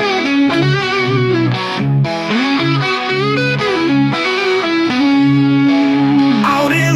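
Distorted electric guitar playing a riff of bent notes, with a long held note about five seconds in, in an AI-generated heavy blues-rock song.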